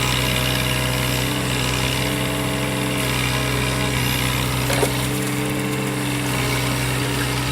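Mini excavator engine running steadily at a constant pitch, with a short faint sound about five seconds in.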